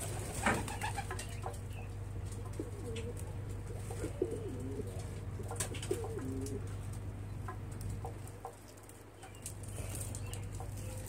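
Domestic pigeon cooing: a run of low, wavering coos from a little after two seconds in to about six and a half seconds, over a steady low hum and a few light clicks.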